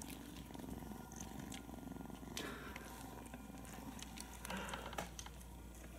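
A cat purring steadily, with a few soft knocks and rustles about two and a half and five seconds in.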